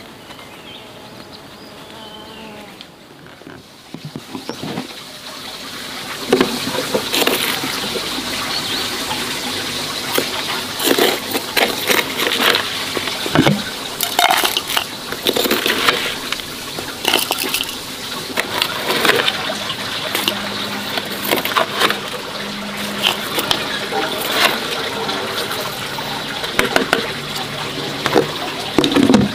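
Water running and splashing, loud from about six seconds in, with frequent knocks and clatter over it.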